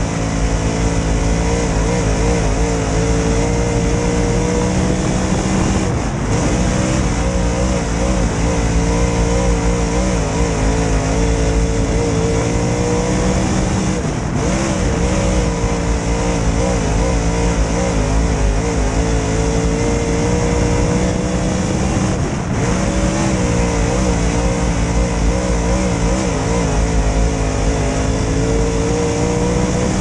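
Dirt late model race car's V8 engine heard from inside the cockpit, running hard. Its pitch climbs steadily, with a brief lift off the throttle about every eight seconds, over a constant rush of wind and track noise.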